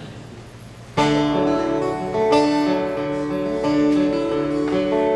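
Acoustic guitar comes in about a second in, playing the opening chords of a folk song, each chord ringing on.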